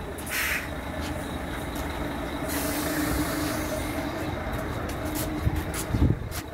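Heavy lorry's diesel engine running at idle, with a short hiss of air about half a second in and a longer hiss from about two and a half seconds. A few clicks and a thump come near the end.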